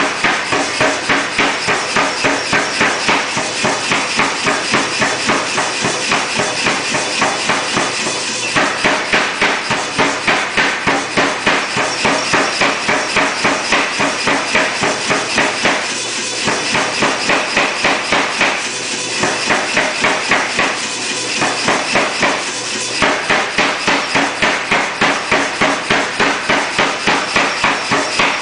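Say-Mak SPH 50 self-contained power hammer striking a hot 9260 steel bar between flat dies: a fast, even run of blows at about four a second, with a few brief pauses, over the machine's steady running hum.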